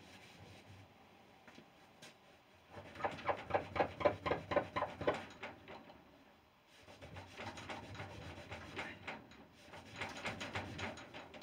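A cloth buffing freshly applied Briwax on a stripped pine door in quick back-and-forth rubbing strokes, about four or five a second. The rubbing starts a few seconds in, pauses briefly around the middle, then carries on.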